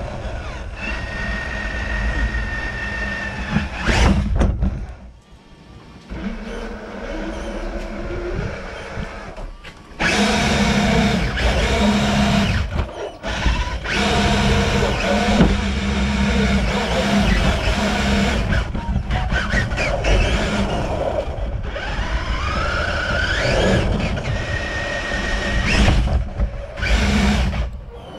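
Traxxas TRX-4 RC crawler's electric motor and gears whining, with its tyres rolling over wet paving, heard from a camera mounted on the truck. The whine rises and falls with the throttle and drops away briefly about five seconds in, again about halfway through, and near the end.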